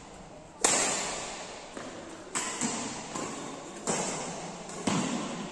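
Badminton racket strings striking a shuttlecock during a rally, about five sharp hits roughly a second apart, the first loudest, each ringing on in the echo of a large metal-clad hall.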